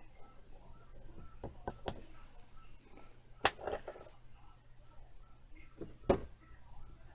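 Small sharp clicks and taps of metal tools and parts against the open frame of a Marryat MR7 fly reel as a part is pressed into place, with a few clicks in quick succession early on and the loudest single clicks about three and a half and six seconds in.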